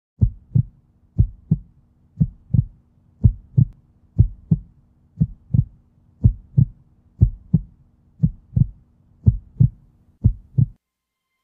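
Heartbeat sound effect: eleven paired low thumps (lub-dub), about one beat a second, over a faint steady low hum, stopping abruptly near the end.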